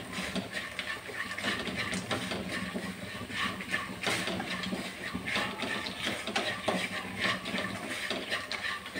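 A wooden spatula stirring and scraping dried turkey berries (sundakkai) and garlic, coated in chilli powder and frying in oil, around a non-stick kadai. Irregular scrapes come over a steady sizzle.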